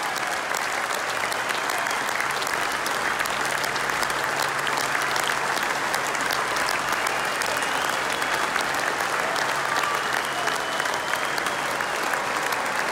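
Large stadium crowd applauding steadily, thousands of hands clapping at once in an unbroken wash of sound.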